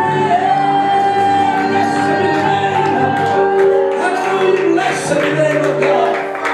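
Live church worship band playing: electric guitar and keyboard over a steady bass, with singing and long held notes.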